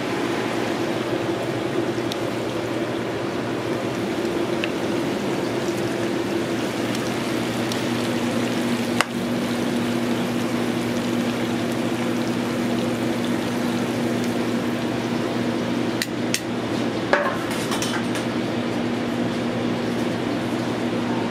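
Steady hum of commercial kitchen equipment such as a ventilation fan, with a low constant drone. A few sharp clinks of metal tongs and a skillet break through it.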